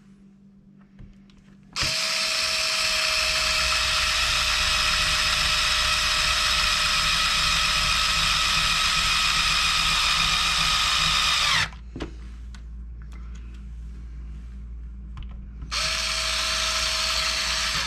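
Power screwdriver running as it drives screws: a steady motor whine for about ten seconds that rises a little in pitch just before it stops, then a second, shorter run of about two seconds near the end.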